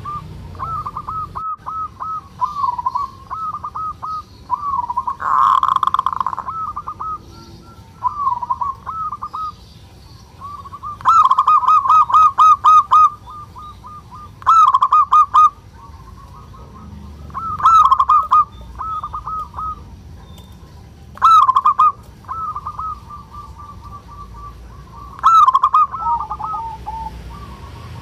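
Zebra dove (perkutut) calling: the rapid churring 'kerot' coo of a male in breeding condition, short quick-note phrases repeated over and over, with several louder phrases coming every three to four seconds in the second half.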